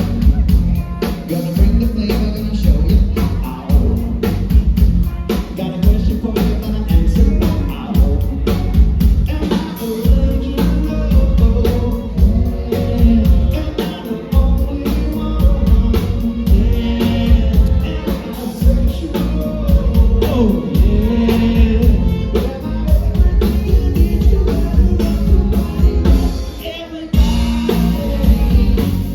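Background music: a song with singing over a steady drum beat and bass.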